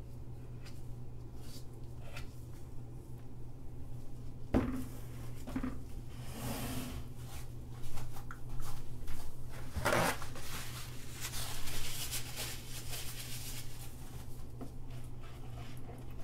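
Soap-making bowls handled on a worktable: a sharp knock about four and a half seconds in and another about ten seconds in as bowls are moved and set down, with scraping and stirring noise between. A steady low hum runs underneath.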